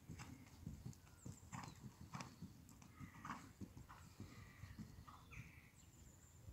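Faint, soft hoofbeats of a ridden horse on a sand arena surface: a steady rhythm of dull thuds.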